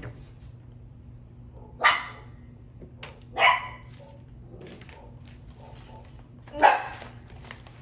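A dog barks three times, short loud barks spaced about a second and a half to three seconds apart.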